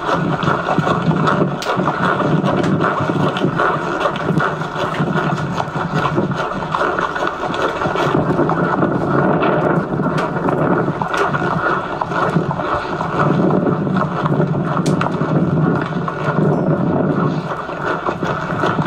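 Steady wind noise buffeting a camcorder microphone, played back through a TV speaker, with a few faint clicks.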